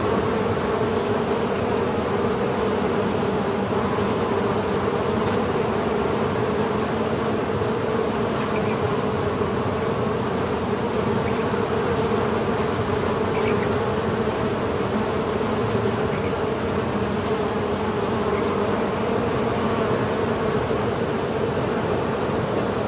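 Honey bees buzzing en masse around an open hive: a dense, steady hum of many bees at once.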